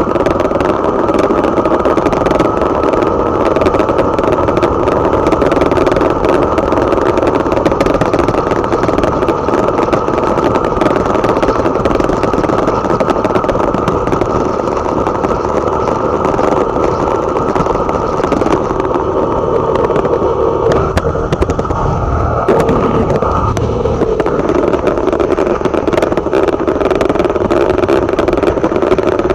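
Motorcycle engine running steadily while riding, with wind and road noise. The engine note shifts briefly about twenty-two seconds in.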